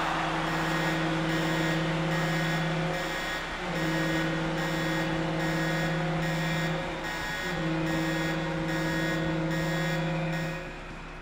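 A horn sounding three long, steady blasts at the same low pitch, each about three seconds with short breaks between, over a quick regular beat about twice a second.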